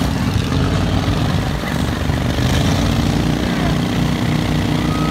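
Vehicle engines idling steadily while a six-wheeled amphibious ATV and a lifted pickup sit hitched for a tug-of-war pull. A thin steady high whine comes in near the end.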